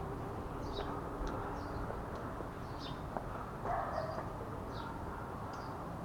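Small birds giving short, high chirps about once or twice a second over a steady background hiss, with a brief lower-pitched sound a little past the middle.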